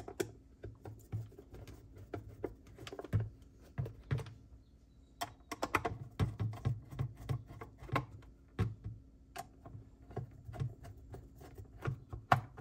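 Hand screwdriver driving screws into the plastic base of an electric pencil sharpener: a run of small, irregular clicks and taps as the bit works in the screw heads and the plastic housing shifts in the hand.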